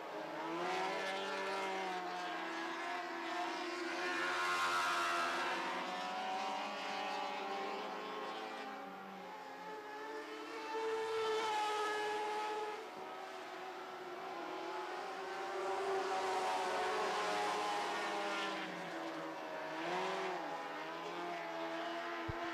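Lightning sprint cars with motorcycle engines racing on a dirt oval. Several engine notes rise and fall as the cars accelerate down the straights and lift through the turns.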